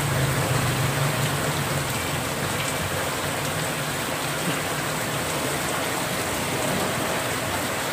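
Heavy rain falling steadily on a wet street, an even hiss. A passing vehicle's low engine hum fades away in the first few seconds.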